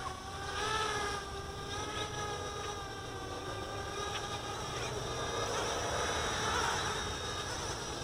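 Small electric quadcopter's motors and propellers whining in flight, the pitch dipping and rising as the throttle changes.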